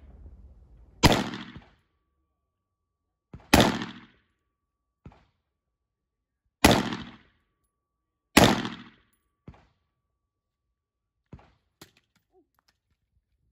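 Single gunshots from a short-barrelled rifle-calibre pistol fed from a drum magazine: four loud shots fired slowly at uneven intervals, about a second, three and a half, six and a half and eight and a half seconds in, each with a short echoing tail, with a few fainter cracks in between and after. The drum feeds each round without a jam.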